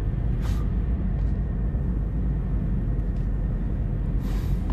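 Steady low rumble of a spaceship interior's ambient hum, with two short hisses, one about half a second in and one near the end.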